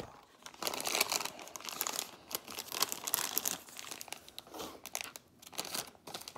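Plastic candy bag crinkling in irregular bursts as it is handled.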